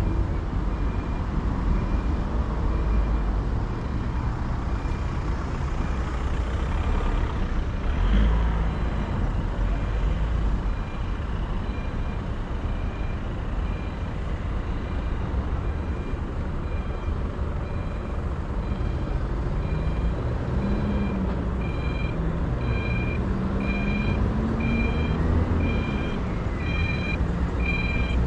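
Steady low city-traffic rumble with the regular high beeping of a pedestrian crossing signal, which grows louder over the last few seconds as the crossing is reached.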